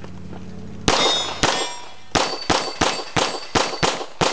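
A pistol string of about nine shots at steel plates: two spaced shots, then a faster run of seven. Each hit leaves the steel plates ringing.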